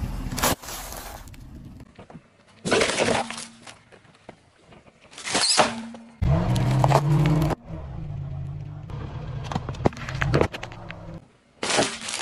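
Car tyre rolling over and crushing packaged items such as a packet of instant noodles and foil wrappers. There are about six separate sharp crunching, crackling bursts, one every two seconds or so.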